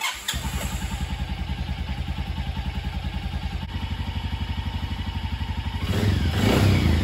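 2007 Can-Am DS250's single-cylinder four-stroke engine idling evenly with a steady putter, then revved up briefly near the end. It runs cleanly now that the carburettor's jet-needle clip is refitted, no longer running rich.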